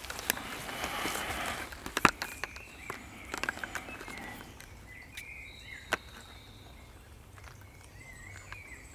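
Rustling and a few sharp clicks from handling a soft plastic water pouch and a straw filter, with a bird chirping faintly a few times in the background. The second half is quieter.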